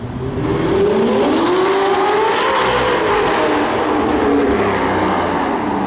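Audi R8's 4.2-litre V8 through an iPE aftermarket exhaust, the car driving by under power: the engine note climbs over the first couple of seconds, then falls away.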